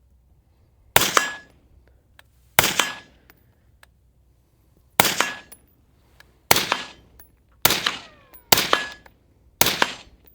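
Seven semi-automatic AR-15 rifle shots, fired one at a time at uneven intervals of about one to two and a half seconds, each a sharp crack with a short echo tail.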